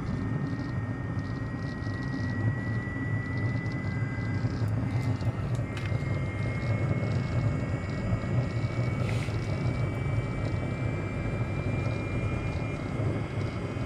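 Diesel air parking heater starting up: its fan gives a thin steady whine that creeps slowly up in pitch over a low burner rumble, the whine fading near the end. By the sound the owner takes it that the burner has lit.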